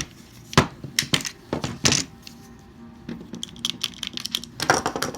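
Sharp clicks and clacks of a pistol with a mounted weapon light being handled against a hard plastic holster, several separate knocks with lighter ticking between them.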